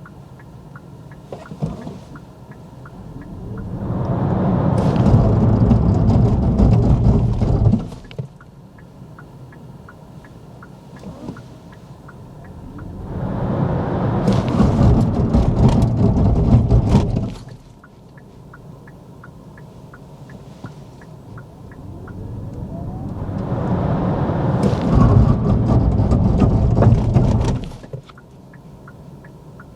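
Kia EV6 GT electric car launching hard three times. Each time the road and drive noise builds over about four seconds with a faint rising motor whine, then cuts off sharply.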